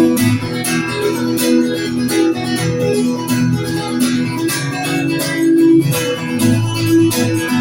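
Guitar strummed in a steady rhythm of chords, played live as the instrumental intro to a song, with no singing.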